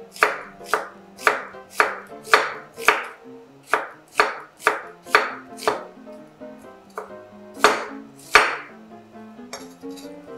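A knife slicing through an onion onto a wooden cutting board: a run of crisp chops, about two a second. After a short pause, a few slower cuts come near the end.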